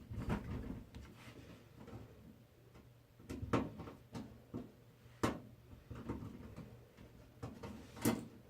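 Scattered clicks and light knocks of a screwdriver and small screws being handled and worked against a computer case while fitting a motherboard, three of them sharper than the rest.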